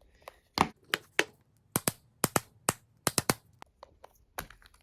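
Small plastic toy figures and their packaging being handled and set down: a run of about fifteen sharp, irregular clicks and taps.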